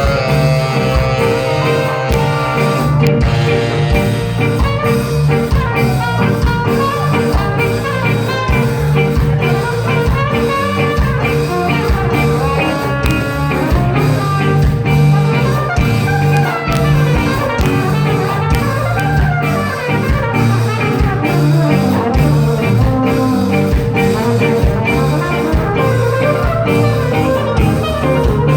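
Ska band playing an instrumental live, with horns, guitar and drum kit over a steady beat.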